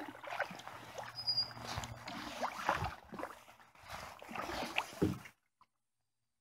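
Wooden canoe paddle pulling through still marsh water: irregular swishes, gurgles and drips with each stroke, stopping about five seconds in.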